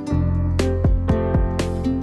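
Background music: a strummed acoustic guitar tune with a steady beat.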